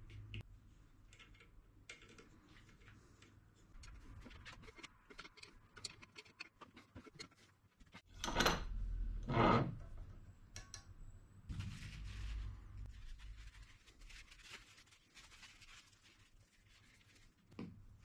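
Workbench handling noises: small metal parts and tools clicking and being set down on a wooden bench. Two louder scrapes come about eight and nine seconds in.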